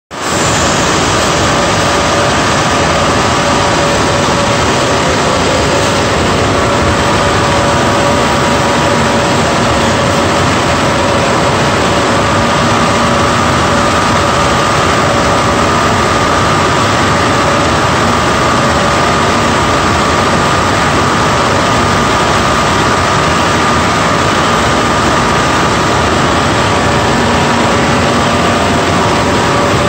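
Textile dyeing machinery and its motors running with a loud, steady drone and a few constant humming tones.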